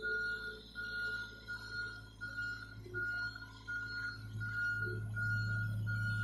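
Compact excavator's travel alarm beeping in a steady, even rhythm of about one and a half beeps a second, one unchanging pitch, over the machine's diesel engine, which grows louder about four seconds in as the excavator moves.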